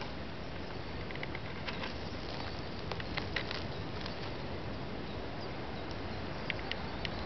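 Steady outdoor background noise with faint, short, high ticks or chirps scattered through it, a few clustered about three seconds in and again near the end.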